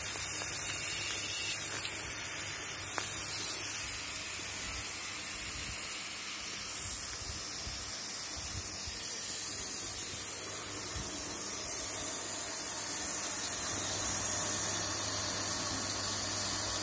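Pressurized water hissing steadily as fine spray jets from leaking compression fittings on black poly pipe, with a low hum beneath. The joints are leaking under pump pressure.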